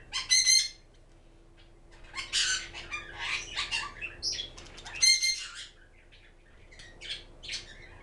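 Pet parrotlets squawking and chirping: a loud ringing squawk just after the start and another about five seconds in, with busy chatter between them and a few short chirps near the end.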